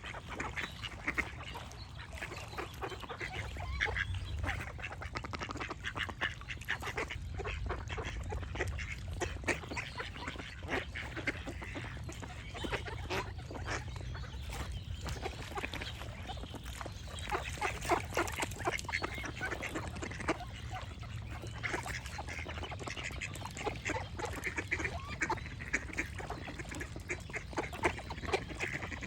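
Ducks quacking over and over, many short calls close together and overlapping, with small birds chirping among them and a steady low rumble underneath.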